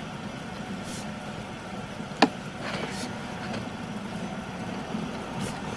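A motor running steadily, with one sharp click about two seconds in.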